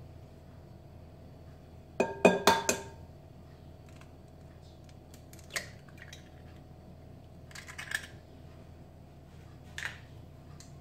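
An egg is knocked four or five times in quick succession against the rim of a glass mixing bowl, and the glass rings briefly after each knock. Later the eggshell crackles as it is pulled apart, with a few small clicks.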